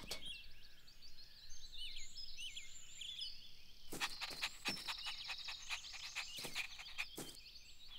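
Quiet birdsong ambience: many small birds chirping in short high calls, with a steady high trill through the middle and a few faint clicks in the second half.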